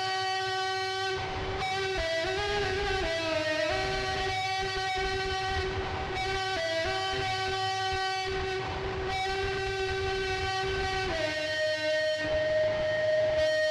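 Music: a slow melody of long held notes that step from one pitch to the next, over a plucked guitar.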